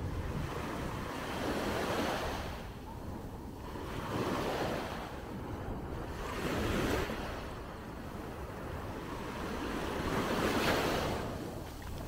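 Sea waves breaking and washing onto a beach, the surf rising and falling about four times, every two to four seconds. Wind buffets the microphone with a steady low rumble underneath.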